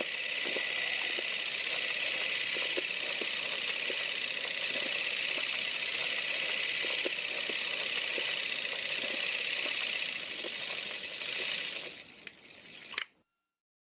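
Steady hiss of old film noise with scattered irregular crackles and pops; it fades near the end and cuts off abruptly.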